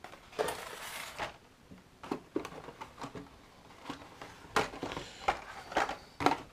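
Cardboard tray and blister-carded Hot Wheels cars being handled and laid on a table: scattered rustles of card and packaging with light knocks, the sharpest knocks in the last couple of seconds.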